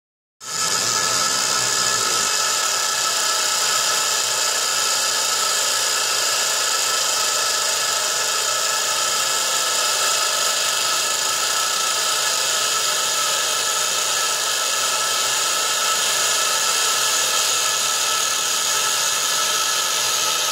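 Laser engraver etching a metal disc: a steady, high-pitched buzzing hiss with several constant whining tones, starting abruptly just after the start.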